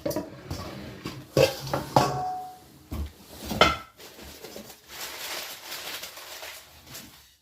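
Glass kitchenware clinking and knocking together as pieces are handled, about five knocks in the first four seconds, one leaving a brief ring. Then a few seconds of softer rummaging rustle.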